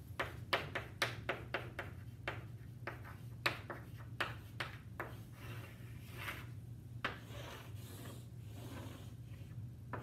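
Chalk on a chalkboard: a quick run of sharp taps and short scratches as letters are written, then longer scraping strokes in the last few seconds as lines are drawn. A low steady hum runs underneath.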